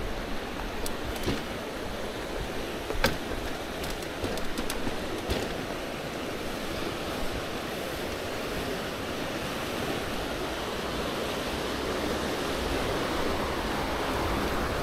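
Steady rush of river water spilling over a low weir, with a few sharp clicks in the first five seconds.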